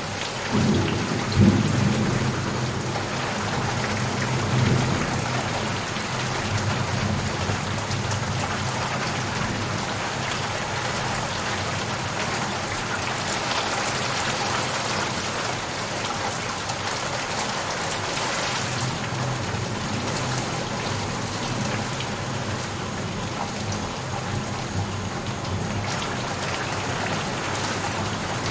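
Steady rain falling, with low rolling thunder that is strongest in the first few seconds and rumbles on more faintly later.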